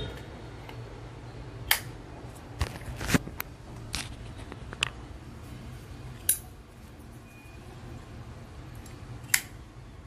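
1967 Zippo windproof lighter's chrome lid being flicked open and snapped shut, giving a series of sharp metallic clicks, several with a brief ring. The hinge is new and still tight.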